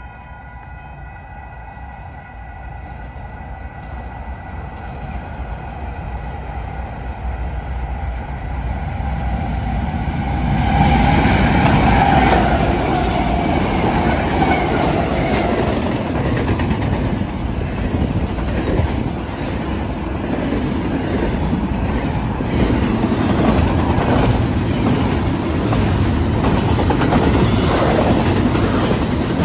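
Union Pacific intermodal freight train passing close by at speed. It grows steadily louder as its four-locomotive lead consist approaches, is loudest about eleven seconds in as the locomotives go by, then carries on with the steady rolling and clickety-clack of the intermodal cars' wheels over the rails. A steady ringing tone is heard at first and is soon drowned out.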